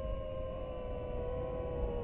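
DJI FPV drone's motors and propellers whining steadily, their pitch sagging a little, over a low rumble.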